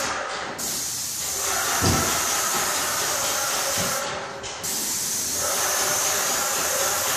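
Airless paint sprayer's gun hissing steadily as it sprays paint. The hiss thins briefly at the very start and again about four seconds in, and there is one dull thump about two seconds in.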